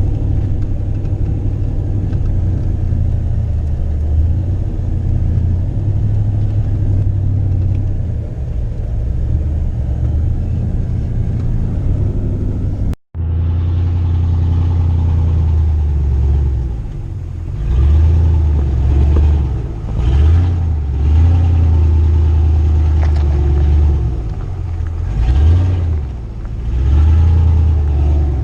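Pickup truck engine driving: a steady low drone, broken by a split-second gap about thirteen seconds in, then the engine repeatedly rising and falling with the throttle.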